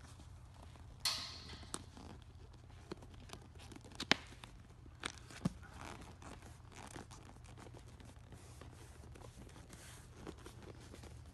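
Vinyl seat cover being stretched and worked over a car headrest by hand: a short rasp of the material about a second in, then scattered light clicks and rustles, with one sharper click about four seconds in.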